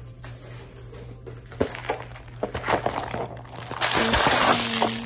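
Plastic packaging crinkling and crackling as it is handled, starting with scattered crackles and becoming a loud, dense rustle near the end.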